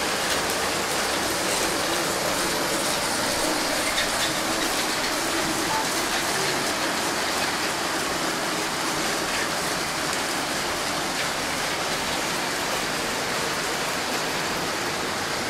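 Several LEGO trains running on plastic LEGO track: a steady, even rattle of plastic wheels and wagons rolling over the track, with faint scattered ticks.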